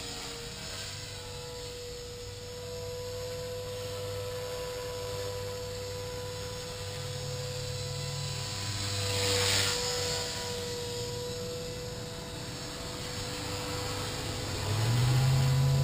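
Blade 450X electric RC helicopter in flight: a steady high whine from its motor and drive gears over the low hum of the spinning rotor, whose pitch shifts a few times. There is a rush of air about nine seconds in, and the sound grows louder near the end.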